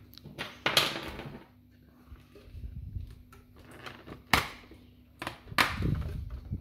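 Handling noises of a plastic toy blaster and its cardboard packaging as the ties holding it in the box are cut: a rustling scrape about a second in, then sharp plastic clicks and knocks, the two loudest in the second half.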